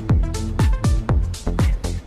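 Electronic background music with a steady kick-drum beat over held synth chords.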